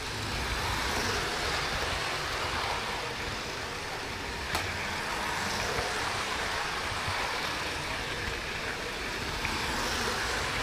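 Model railway trains running on track, heard from a camera riding on one of them: a steady rolling rumble and hiss of wheels on rails, with one sharp click about four and a half seconds in.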